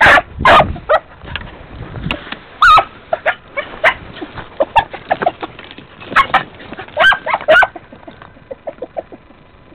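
Beagles barking and yelping on the hunt in short, high, sharp calls, a handful of them spread irregularly through the seconds, as hounds give tongue while working for game.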